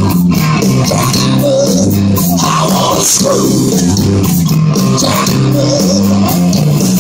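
Rock band playing live, loud and steady: electric guitars, a bass line stepping between low notes, and a drum kit keeping the beat, with no vocal line.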